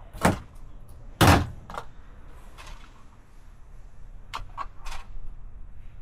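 Hand tools being handled on a workbench: two sharp clacks about a second apart, the second the louder, then a few lighter clicks.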